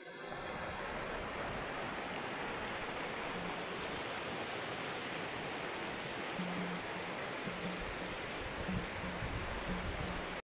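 Shallow, stony river running over rocks and riffles: a steady rushing hiss.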